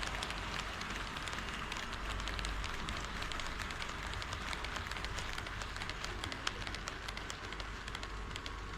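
HO scale model train running on KATO Unitrack: a steady rolling rumble with many small, irregular clicks from the wheels on the track.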